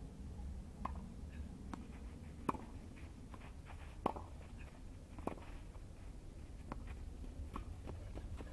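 Tennis ball being played in a rally on a clay court: a string of sharp pocks of racket strikes and ball bounces, roughly one every second, some louder than others.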